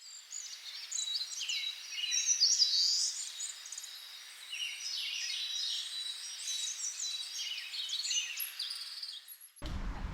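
Several small birds chirping and singing at once, many short overlapping calls and whistles, cutting off abruptly near the end.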